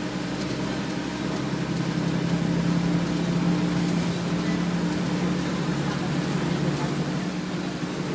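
Bus interior with the Detroit Diesel Series 40 inline-six diesel of a 2000 Nova Bus LFS running under way: a steady low drone over a haze of road noise, growing slightly louder about two seconds in.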